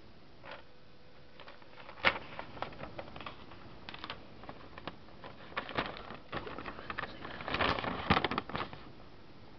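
Scattered, irregular clicks and taps of close handling, like keys or a mouse being pressed, with a busier patch of clicks and paper rustling near the end as a newspaper clipping is picked up and held to the camera.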